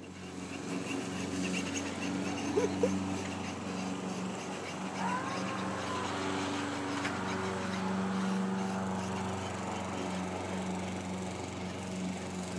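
A small motor running steadily with an even, low hum, with a couple of brief louder sounds about two and a half seconds in.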